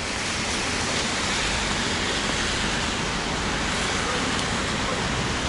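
Steady hiss of rain falling on a wet city street.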